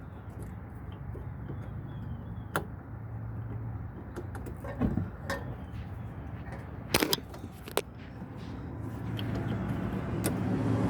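A few sharp clicks and knocks of car parts being handled and fitted back in place, with a double click about seven seconds in, over a steady low rumble that grows louder near the end.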